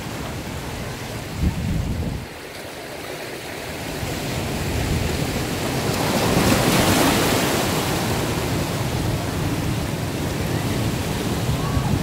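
Ocean surf surging and breaking against granite boulders, a steady rush of white water that builds to its loudest crash about six or seven seconds in. A brief low thump comes about a second and a half in.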